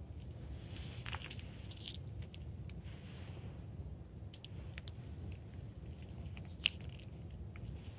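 An orange-and-white cat crunching dry kibble from a bowl: faint, irregular crunches and clicks, with one sharper click near the end, over a low steady rumble.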